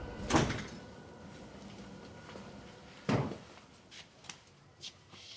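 A door thudding twice, about three seconds apart, the first the louder, then a few faint knocks.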